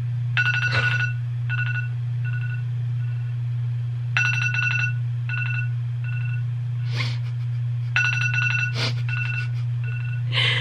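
Alarm going off as the 10-minute timer runs out: a ringing chime followed by a string of short beeps, the pattern repeating three times, over a steady low hum.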